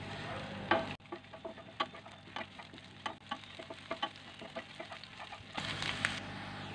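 Wooden spatula stirring chopped garlic, ginger and green chillies in hot oil in a non-stick frying pan: sizzling frying with many short scattered taps and scrapes of the spatula on the pan.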